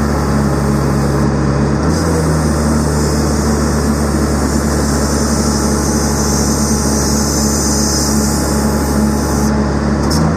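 Engine of a skid-steer loader running steadily, driving a Bobcat Planer 40 cold planer attachment, with a slight shift in pitch about two seconds in.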